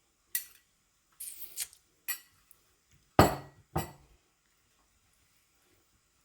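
Kitchen utensils and dishes clinking, five or so short knocks over about four seconds, the sharpest a little past three seconds in.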